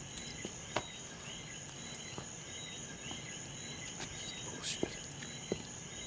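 Crickets chirping in a steady night chorus: a continuous high trill with regularly repeated chirps. A few sharp clicks sound now and then, the loudest about a second in and near the end.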